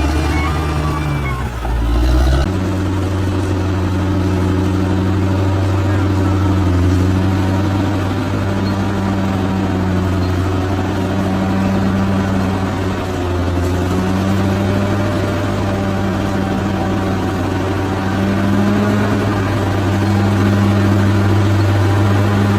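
Large bulldozer's diesel engine running steadily with a deep, even drone. Its pitch changes abruptly about two and a half seconds in, then holds steady.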